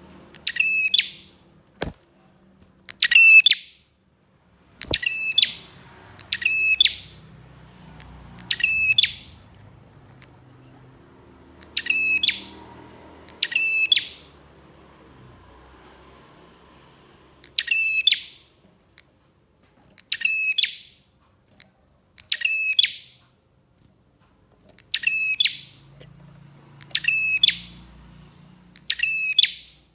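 A prinia (prenjak) calling over and over: short, sharp, rasping calls of about half a second each, roughly every two seconds, with a few longer pauses.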